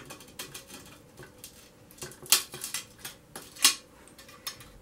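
Running pliers squeezed on a scored line in sheet glass: a string of light ticks and clicks, then two sharp cracks a little over a second apart, as the score runs only part of the way across.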